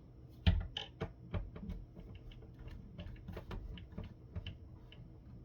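Irregular clicks, taps and knocks of hand tools working on the plastic housing of a conference phone base station, with one louder knock about half a second in.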